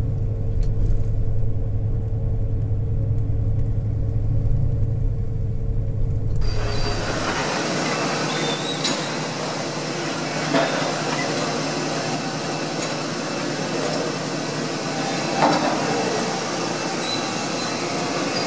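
Low, steady rumble of a moving train heard from inside the carriage. About six seconds in it cuts abruptly to the busy mechanical clatter of a running machine tool, a belt-driven metal planer, with a few sharp metallic knocks and faint high squeals over a steady noise.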